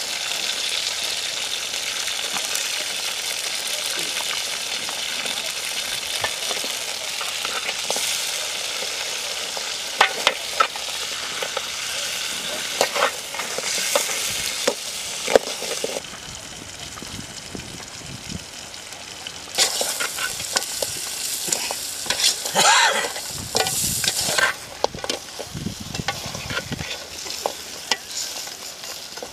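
Crab pieces and vegetables sizzling as they fry in a large aluminium pan, with a perforated metal spoon stirring them and scraping and clattering against the pan in two spells. The sizzle is steady for the first half and quieter after that.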